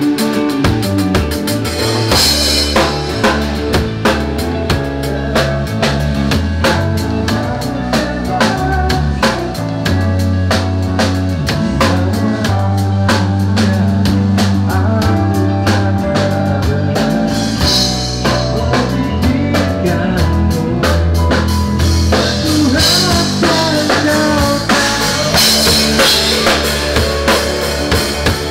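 Rock band playing at a sound check: a drum kit keeps a steady beat over sustained bass notes, with cymbal crashes a few times.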